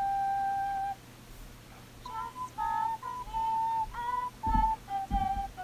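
A slow, simple melody on a high, pure-toned flute-like wind instrument: one long held note, a short pause, then a run of shorter stepped notes. Near the end there are a few soft low thumps.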